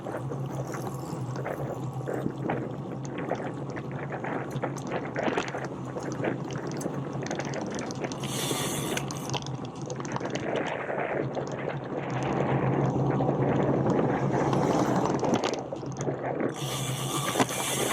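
Riding noise from a moving bicycle: crackling, rattling tyre and road noise over a steady low hum, growing louder from about twelve to fifteen seconds in.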